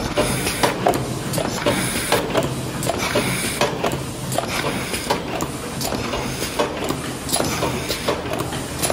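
Paper take-away box forming machine running: rhythmic clacks of its moulds and mechanism about twice a second over a steady motor hum, with short hisses of air now and then.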